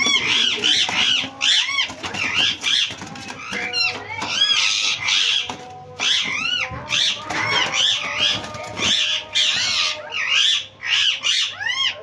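Green Indian ringneck parakeets screeching in a rapid, overlapping run of short harsh calls, the alarm of birds being grabbed by hand in their cage.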